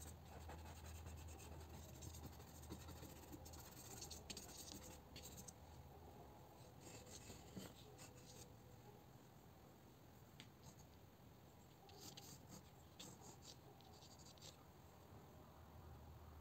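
Faint rubbing of an eraser and scratching of a graphite pencil on textured watercolour paper, in short runs of strokes with quiet between them.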